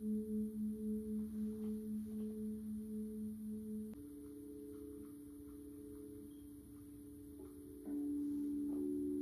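Now Tone Therapy System sounding sustained, singing-bowl-like tones. A pulsing tone, about three beats a second, fades away and gives way about four seconds in to a different steady tone. Near the end more tones join and the sound gets louder, with faint button clicks in between.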